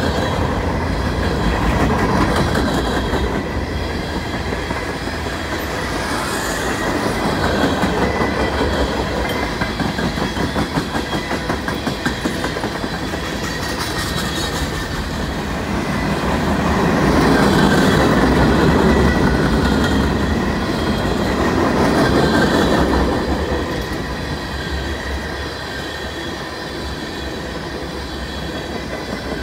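Freight train cars rolling past, steel wheels rumbling and clacking over the rails with a thin high wheel squeal above. The rumble swells louder about two-thirds of the way through, then eases.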